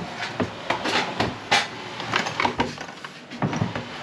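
Irregular clicks and light knocks of hand tools and metal engine parts being handled, several a second, uneven.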